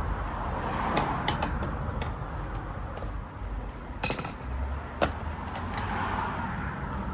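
A few sharp metallic clicks and taps, from a screwdriver working against a bicycle wheel rim to lever the tire off. A steady low rumble runs underneath.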